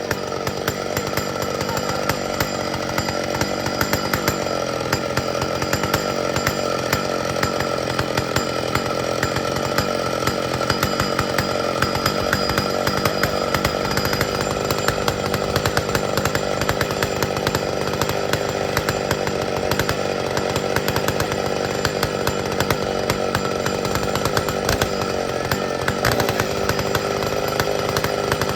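Old McCulloch chainsaw running steadily at high speed, its engine note held without a break.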